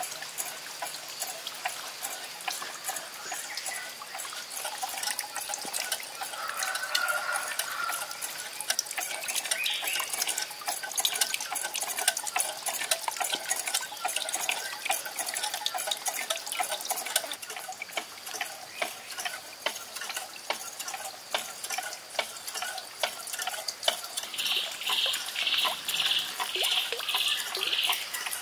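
Running water trickling and splashing steadily. Near the end a high pulsed chirping call repeats about two to three times a second.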